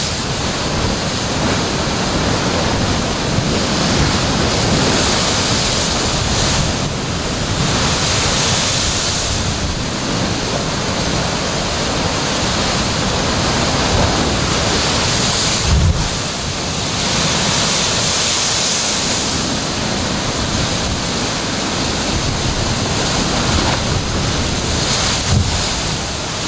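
Heavy surf crashing into a narrow rocky inlet: a continuous rush of breaking water that swells as each wave surges in. There are two dull thumps, one past the middle and one near the end.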